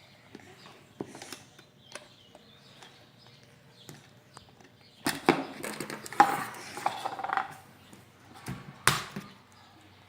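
Handling noises as slime is kneaded and its pot handled: small scattered clicks, a dense stretch of crackling and rustling about halfway through, then one sharp knock near the end.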